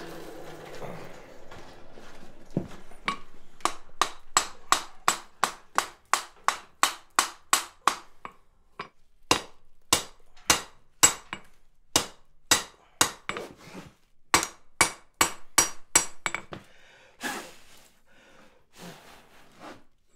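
Hand hammer striking red-hot steel on an anvil, working the split, flared (fish-mouthed) struck end of a steel stone chisel back into shape. The ringing blows come in runs of about three a second, with short pauses, and grow sparse near the end.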